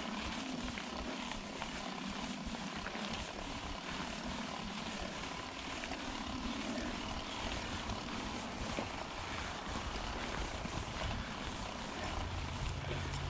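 Mountain bike rolling down a dry dirt trail: tyres crunching over loose dirt, with scattered small clicks and rattles from the bike. A low wind rumble on the microphone grows louder near the end as speed picks up.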